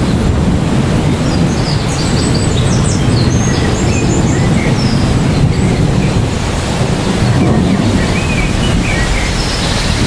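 Heavy rain pouring steadily onto a tree's leaves and branches: a dense, continuous hiss with a deep rumble underneath. A few short high chirps come through about two to four seconds in and again near the end.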